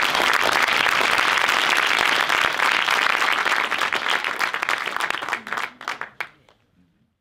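Applause from many people clapping, thinning to a few last separate claps about six seconds in and then stopping.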